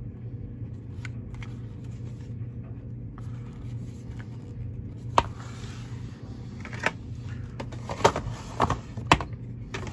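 Small cardboard boxes being handled and turned over, with a few sharp taps and scuffs of card in the second half, over a steady low hum.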